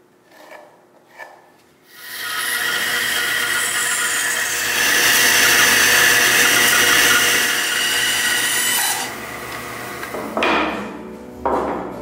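Two faint chisel strokes on walnut. Then a bandsaw cuts through a walnut block for about seven seconds, loudest in the middle. Two short rubbing strokes follow near the end.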